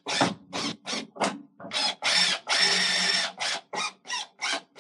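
Cordless drill/driver turning Phillips screws into the dryer's plastic door-switch mount, run in short pulses about three a second with one longer run about halfway through; the trigger is feathered so as not to over-tighten into plastic.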